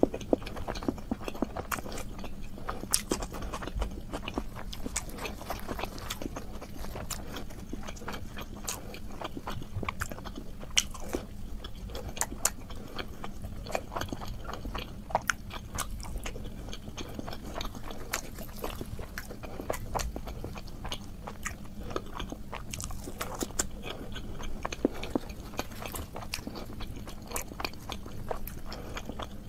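Close-miked mukbang eating of luchi and meat curry by hand: steady chewing and lip-smacking, a constant run of short wet clicks, with fingers tearing the soft puffed luchi and working it through the curry.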